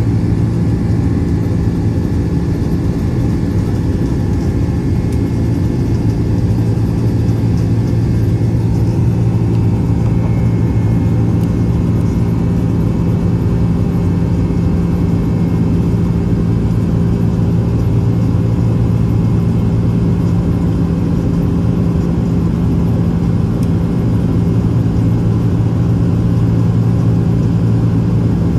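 Boeing 767-300's turbofan engines at climb power after takeoff, heard inside the cabin by the wing as a steady drone with a constant low hum.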